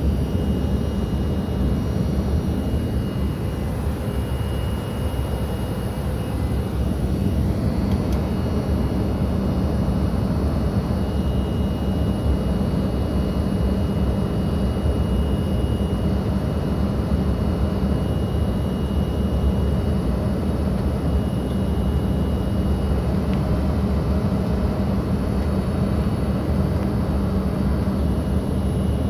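Steady, unbroken cabin noise of a regional jet in flight, heard from a passenger seat: engine and airflow noise with a constant low hum.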